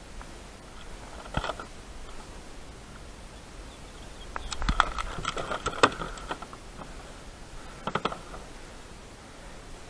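Handling noise on a head-mounted GoPro: clicking, knocking and rubbing right at the microphone in three bursts, a short one about a second and a half in, a longer busy one in the middle, and another short one near the end.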